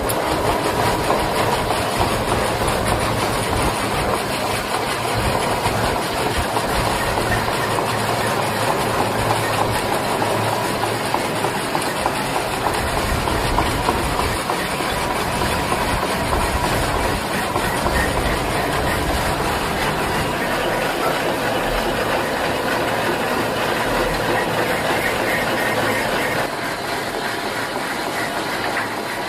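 Metal-working lathe running and cutting a new shaft: a steady, dense mechanical clatter and hiss, a little quieter near the end.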